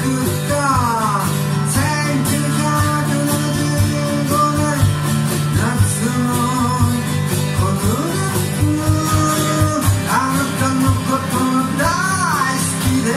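Live song: a man singing to his own strummed acoustic guitar, with drums keeping a steady beat.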